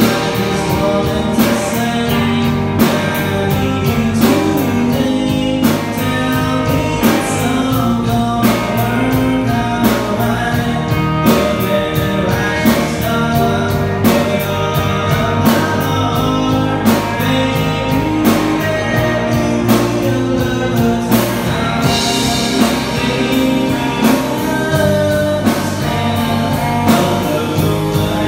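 A live rock band playing with a male lead singer: electric guitar, electric bass and drum kit, with a steady drum beat.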